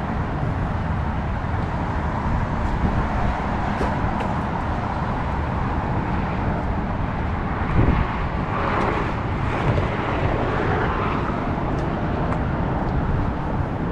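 Steady rumble of a vehicle on the move, with road and wind noise, and a single thump about eight seconds in.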